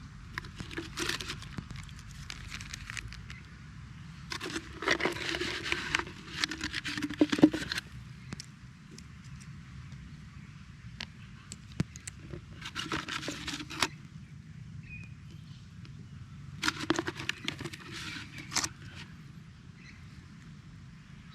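Dry bush litter (leaves, twigs and bark) crackling and rustling as it is disturbed, in several irregular bursts of a second or two each, the longest and loudest about five to seven seconds in.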